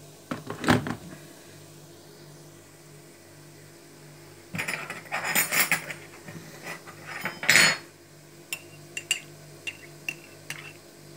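A spoon stirring stock cubes dissolved in hot water in a ceramic mug, clinking against the sides in short bursts: about a second in, from about four and a half to six seconds, and near seven and a half seconds, then lighter scattered taps.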